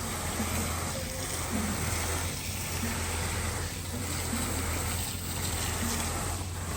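Olin 545 concrete pump running on the job, its engine humming steadily under a noisy wash, with a regular pulse about every second and a half as the pump strokes.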